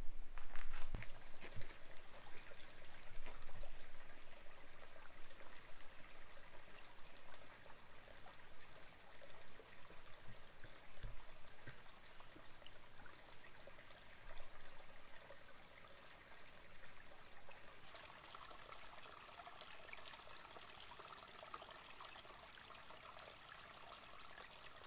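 Running and trickling water, such as a creek or falls, at a low steady level, turning a little brighter about eighteen seconds in. A few light knocks in the first few seconds.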